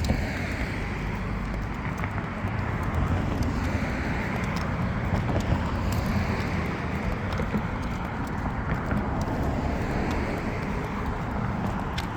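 Outdoor street noise: a steady rumble of road traffic mixed with wind buffeting the microphone, with scattered light ticks.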